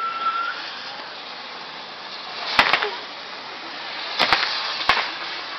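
Castillo fireworks tower burning with a steady hiss of spinning spark wheels. A whistling firework cuts off about half a second in, then five sharp firecracker bangs follow in the second half: two quick pairs and a single.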